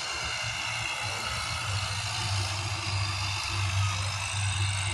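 Steady low hum of an engine running, with an even hiss above it.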